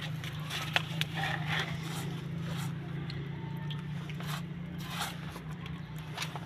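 An improvised cloth-on-a-stick brush scraping and daubing white cement slurry onto a rough cement-plastered wall in irregular strokes, with a sharp tap under a second in. A steady low hum runs underneath.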